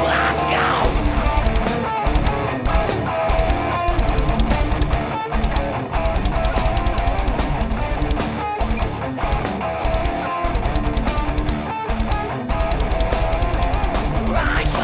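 Heavy metal band playing live: distorted electric guitars over a drum kit, with fast, even kick-drum beats driving underneath.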